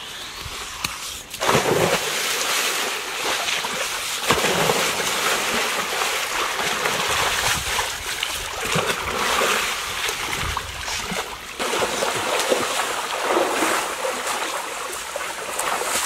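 A person slides down a waterslide into a small pool and hits the water with a splash about a second and a half in. This is followed by continuous sloshing and splashing of the pool water as he swims, with a few louder splashes along the way.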